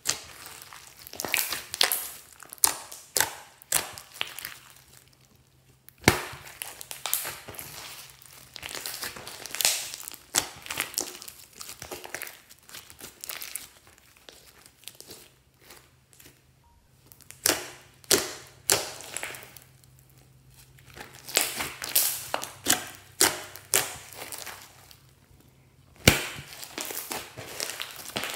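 Glossy slime with small foam beads being squeezed and stretched by hand: wet crackling and popping in bursts of a few seconds, with short pauses between handfuls.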